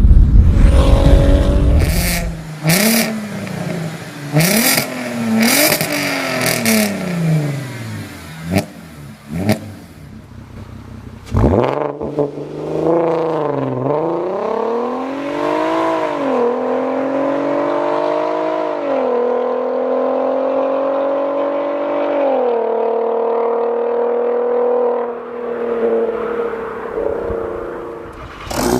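Volkswagen Golf engine and exhaust. After a loud low rumble, the engine is blipped in short revs with sharp cracks from the exhaust. Then it accelerates hard through the gears, its pitch climbing and dropping back at each of about four upshifts.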